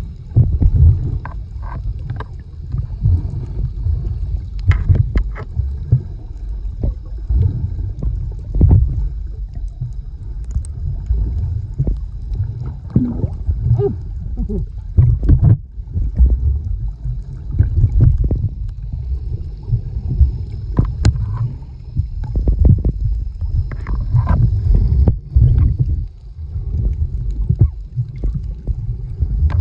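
Muffled underwater sound picked up by a submerged camera as a snorkeler swims: a low, churning rumble of water moving around the microphone, broken by many short clicks and bubbly pops.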